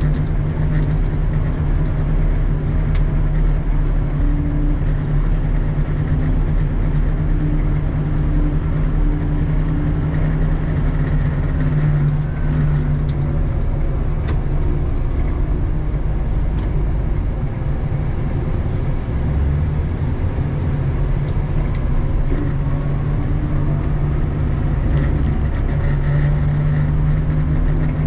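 Doosan DL250 wheel loader's diesel engine running steadily, heard from inside the cab, with a faint whine that rises and falls now and then.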